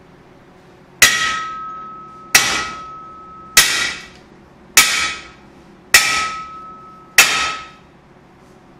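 One-handed steel sword blade struck six times against a target clamped in a bench vise in an impact test. The blows come about a second and a quarter apart, each a sharp metallic hit followed by a clear ringing tone that fades over about a second.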